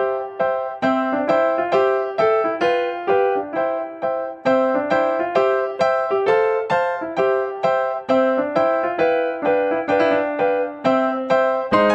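Background piano music: an even run of single notes, about three a second, each ringing and fading.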